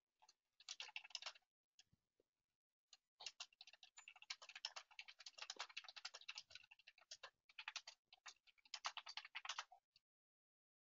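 Faint typing on a computer keyboard, rapid and irregular: a short burst of keystrokes about half a second in, then a longer run from about three seconds in until near the end.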